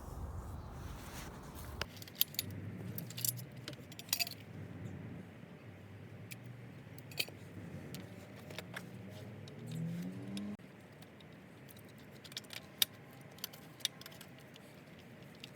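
Small metal parts of a cart clinking and rattling as a bar is taken off and swapped for a backup, with scattered sharp clicks and knocks.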